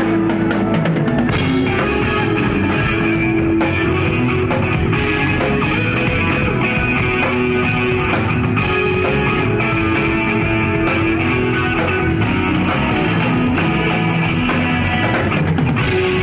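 Live rock band playing: electric guitar over a drum kit, with held notes and steady drumming throughout.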